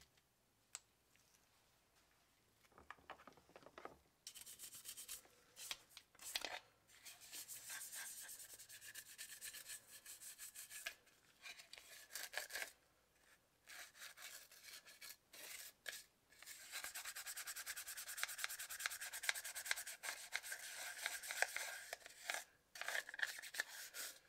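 Toothbrush bristles scrubbing a wet white plastic Zune casing piece with rapid back-and-forth strokes, starting about four seconds in and going on in long runs broken by short pauses.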